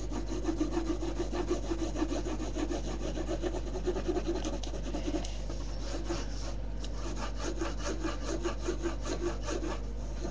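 Colouring in on paper with quick back-and-forth scratchy strokes, several a second, as a large area of hair is filled with light yellow.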